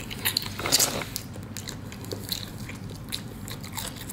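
Biting into and chewing a crispy fried chicken drumstick: a string of crackly crunches from the fried skin, loudest just under a second in.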